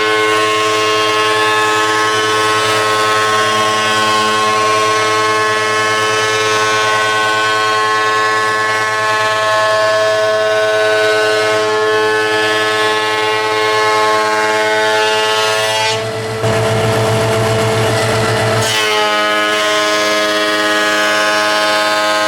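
Background music of long held synthesizer-like chords, changing chord about sixteen seconds in and again near nineteen seconds.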